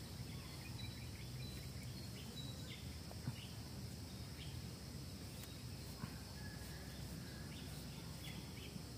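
Steady high-pitched insect chirring over low outdoor background noise, with a few faint clicks.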